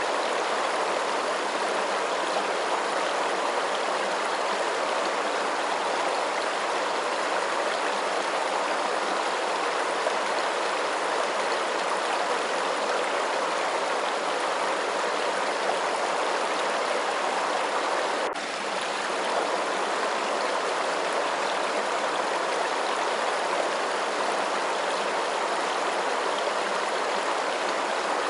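Steady, even rush of running water, with no single splash or drip standing out. The level dips briefly about eighteen seconds in.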